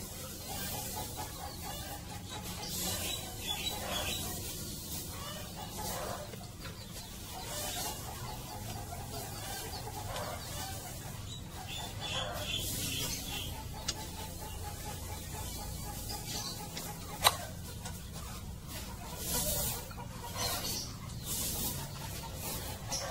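Chickens clucking repeatedly, with intermittent rustling noises and one sharp click about 17 seconds in.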